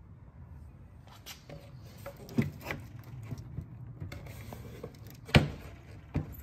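A few light knocks and clicks, the loudest about five seconds in, over a low steady hum.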